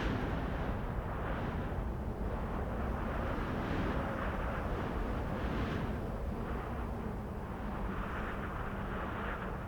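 Strong wind blowing in gusts, with a steady low rumble and hissing swells that rise and fall every second or two.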